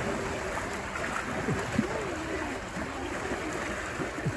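Faint scattered chatter of onlookers over a steady rushing noise.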